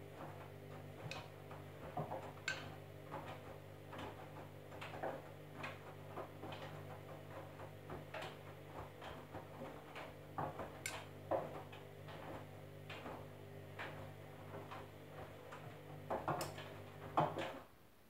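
Candy front-loading washing machine tumbling a wet load: a steady motor hum with irregular clicks and knocks from the load turning in the drum. The motor stops about a second before the end.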